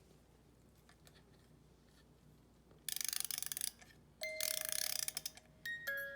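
A wind-up music box being wound: two bursts of rapid ratcheting clicks from the key. Near the end it starts playing its tune in ringing, bell-like plucked notes.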